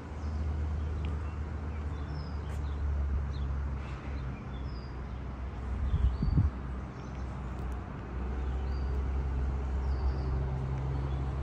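Steady low city traffic rumble with small birds chirping now and then, and a brief low bump about six seconds in.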